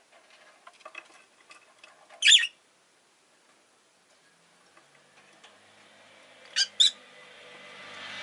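Rosy-faced lovebird calling: soft chattering and clicks, one loud shrill call a little over two seconds in, then two sharp calls in quick succession near the end. Traffic noise swells in the background toward the end.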